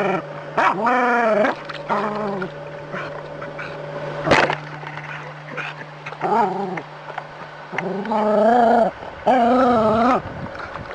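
Small terrier barking at a swimming snake: about five drawn-out, arching barks, two near the start and three in the second half. A single sharp knock about four seconds in.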